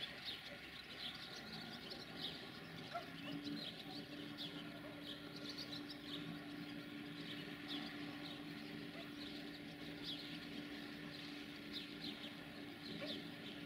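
Small birds chirping repeatedly, short high chirps over a faint outdoor background, with a steady low hum that starts about three seconds in.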